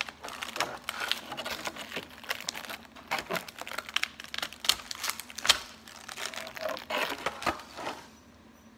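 Clear plastic packaging crinkling and crackling as it is handled and pulled open by hand. The crinkling stops about eight seconds in.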